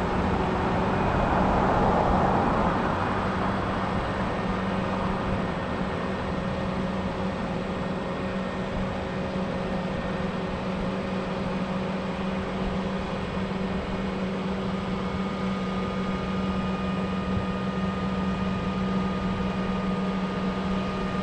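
A vehicle engine running steadily, with a steady hum, swelling louder for a moment about two seconds in and then holding an even level.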